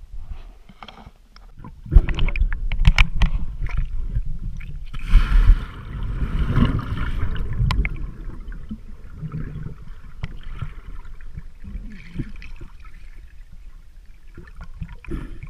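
Underwater sound through a submerged camera: a few sharp knocks about two seconds in, then a rush of bubbles for about three seconds as a swimmer plunges into the water, settling to muffled gurgling.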